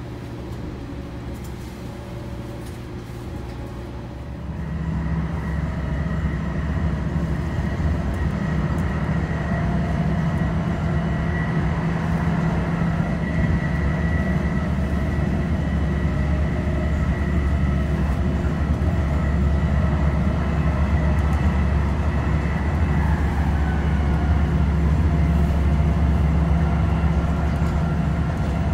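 Inside a TRAX light rail car running along the line: a steady low rumble of wheels on rail with a few held humming tones from the car's running gear. About four seconds in it gets abruptly louder.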